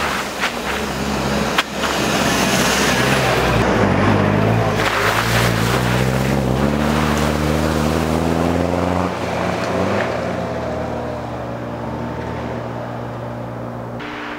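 Off-road SUV engine under load, with splashing and spray of water and mud from the tyres in the first few seconds. The engine note climbs for a couple of seconds past the middle, then holds steady as it eases off.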